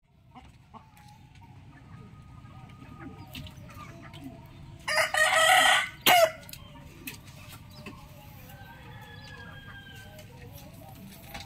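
A rooster crows once, loudly, about five seconds in, a call lasting about a second and a half. Faint bird calls and a low steady background noise sit around it.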